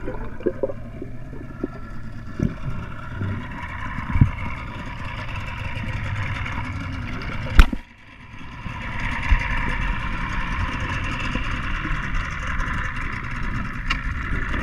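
Boat engine heard underwater as a steady muffled drone. About seven and a half seconds in there is one sharp knock, after which the sound drops away for a moment and builds back up.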